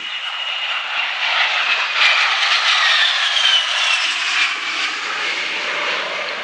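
A-10 Warthog jet making a pass overhead: the engine noise swells to its loudest about two seconds in, and a high whine falls in pitch as the jet goes by.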